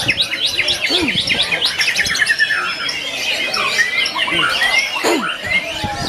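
Caged songbirds singing at once at a songbird contest, a dense mix of rapid overlapping chirps and trills.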